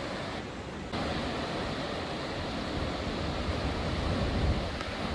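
Ocean surf breaking on a coral reef flat: a steady wash of noise, with a low wind rumble on the microphone.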